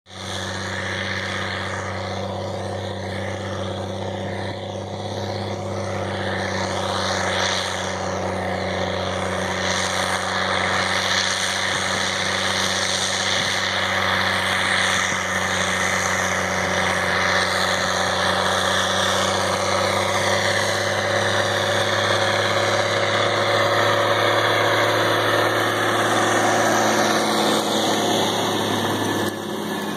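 Tracked tractor's diesel engine running steadily under load, pulling a Horsch Joker RT25 high-speed compact disc through the soil at about 9 mph. The sound grows gradually louder as the rig comes up close, with the noise of the discs working the ground rising under the engine near the end.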